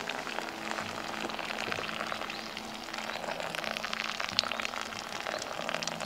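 Pour-over coffee brewing: a thin stream of water poured onto ground coffee in a paper filter, a steady splashing with a fine crackle as the wet grounds bubble.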